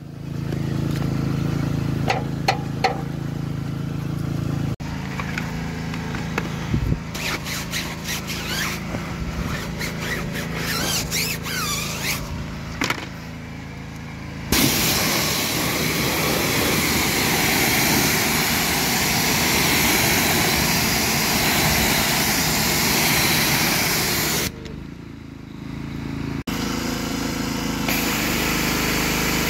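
Pressure washer running, its spray gun with a foam cannon hissing as it sprays soap, over a steady motor hum. The sound comes in several cut-together stretches with a few clicks. The loudest is a long, even hiss of spray about halfway through.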